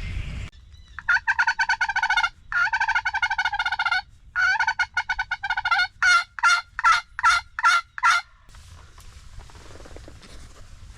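Turkey calling at close range: three fast rattling runs, each about a second and a half long, then about seven slower, separate yelp-like notes.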